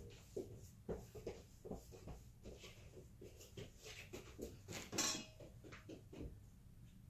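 Metal spoon clinking and scraping against a stainless steel mixing bowl while pancake batter is scooped into a cup, in light, irregular knocks, with a louder clatter about five seconds in.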